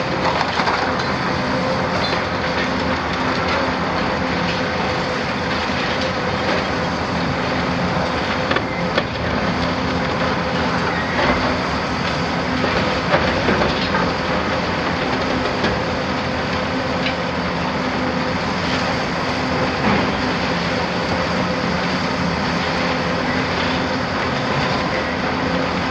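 Heavy tracked demolition excavators at work: a steady diesel engine hum under continuous crunching and clanking of debris, with a few louder knocks scattered through.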